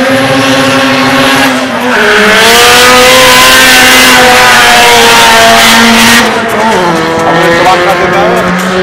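Car engine held at high revs on a drag strip start line, then launching and accelerating hard with the pitch dipping and climbing again about two seconds in. The loud part cuts off sharply about six seconds in, leaving a quieter steady engine sound.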